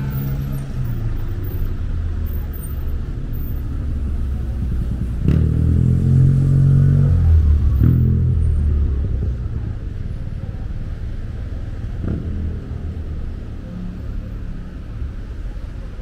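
Street traffic: motor vehicle engines running close by, one growing louder as it passes about five seconds in, then fading.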